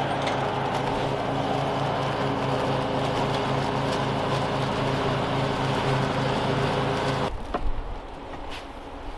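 Toro TimeMaster 30-inch walk-behind mower's gas engine running steadily under load while mowing and bagging leaves. About seven seconds in the sound drops off abruptly with a knock, leaving a quieter low rumble.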